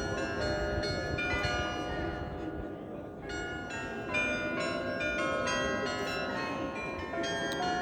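Church bells of the Nieuwe Kerk in Delft ringing, many overlapping strokes about three a second, each ringing on under the next.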